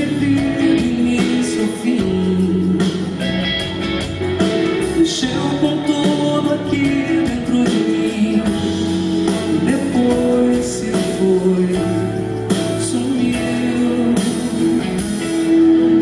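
Live band music from a concert performance of a Brazilian pop song, with guitar prominent and steady throughout.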